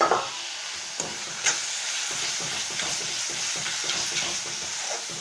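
Spice paste frying in mustard oil in a pan, sizzling steadily with a little added water, while a spatula stirs and scrapes through it in short strokes. The hiss is loudest at the very start.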